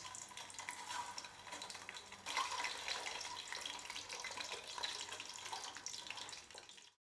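Boiled eggs frying in shallow hot oil in an aluminium pot: a fine, steady crackling sizzle that grows louder a little over two seconds in. It cuts off abruptly just before the end.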